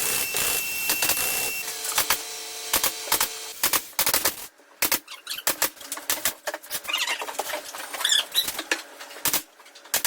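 Irregular clicks and knocks of carpentry work on wood, with a short high squeak about eight seconds in.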